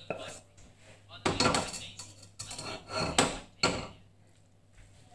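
A wooden spatula scraping and knocking against a granite-coated wok while stir-fried sweet corn, peas and spinach slide out into a serving bowl. Several rough scraping strokes come between about one and four seconds in, then the sounds stop.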